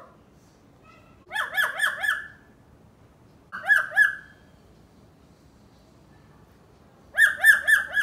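Black-capped lory mimicking a dog's bark: three bursts of quick, rising yaps, several to a burst, about a second and a half in, at about four seconds, and near the end.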